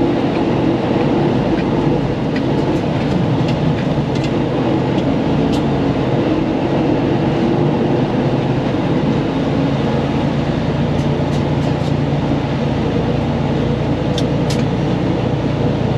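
Inside the cab of a Freightliner Cascadia milk truck, the engine runs steadily as the rig creeps slowly along a gravel farm lane, with a few light ticks over the rumble.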